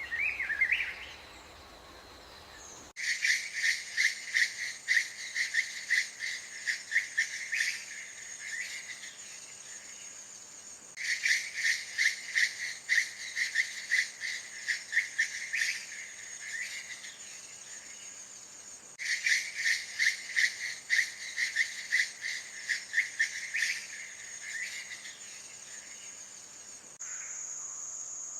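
An animal's rapid chirping trill, several chirps a second, sung three times in bursts of about five seconds each. Near the end a steady high buzz takes over.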